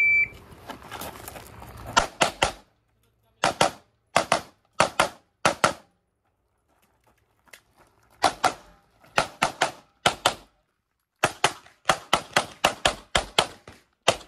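An electronic shot timer gives one short beep, then a Glock 17 Gen 5 MOS 9mm pistol fires many shots, mostly in quick pairs, with a pause of about two seconds near the middle.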